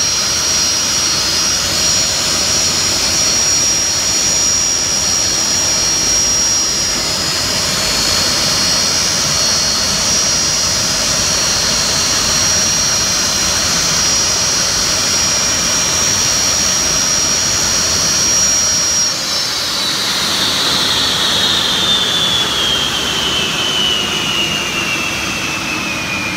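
Boeing 757 jet engines running at taxi power: a loud steady hiss with a high whine. About two-thirds of the way in, the whine starts to fall steadily in pitch as the engines spool down.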